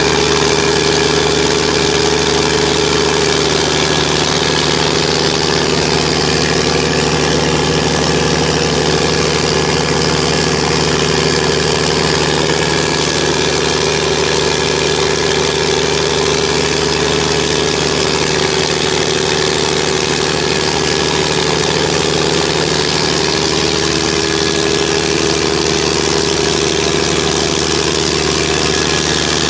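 Diesel engine of a used 180 kVA John Deere generator set running steadily at an even speed, a loud constant drone with no change in pace.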